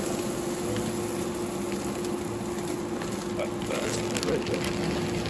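Hardwood pellets pouring from a bag into the metal hopper of a Green Mountain pellet grill: a steady stream of small wooden pellets with scattered clicks, over a steady hum.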